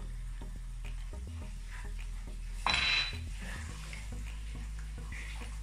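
Hands mixing marinated raw chicken pieces in a glass bowl: wet squelching with many small clicks, and one louder scrape about three seconds in.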